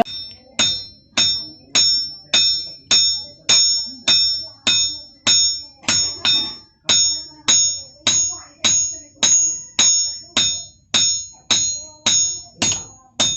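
Blacksmith's hammer striking steel on an anvil while forging a machete. The blows come in a steady rhythm of a little under two a second, and each one gives a bright metallic ring that fades quickly.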